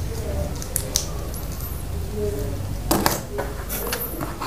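Handling sounds of a plastic ketchup sachet being squeezed onto a pizza, then a hand taking hold of the pizza in its cardboard box. There are a few sharp clicks and taps, the loudest cluster about three seconds in, over a steady low hum.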